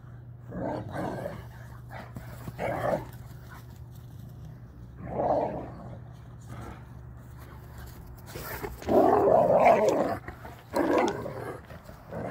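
Dogs growling and barking while play-fighting: a Caucasian Shepherd wrestling with a German Shepherd-type dog. The sound comes in about five short bursts, the longest and loudest about nine seconds in.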